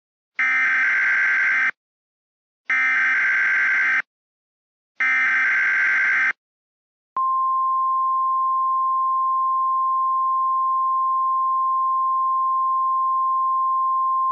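Emergency Alert System header: three short bursts of buzzing SAME data, each about a second and a half long with a second's gap between them. About seven seconds in, a long, steady single-tone attention signal starts and holds.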